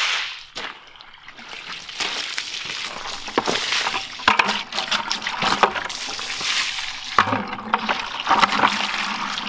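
Water splashing out of a tipped plastic bucket, fading away in the first half second. From about two seconds in, a garden hose runs water steadily into an empty plastic five-gallon bucket, splashing and trickling on its bottom.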